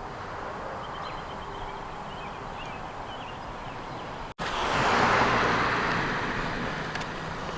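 Outdoor street ambience with faint bird chirps, then a car passing by about halfway through, its tyre noise swelling and fading over a couple of seconds.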